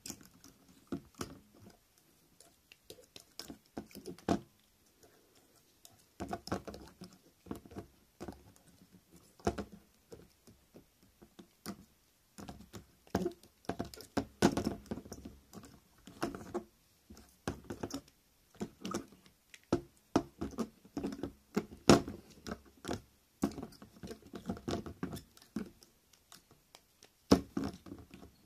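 Irregular clicking, tapping and scratching of two handmade beetle figures with wire legs, pushed against each other and scraped across the plastic surface by hand, in uneven flurries with a few short pauses.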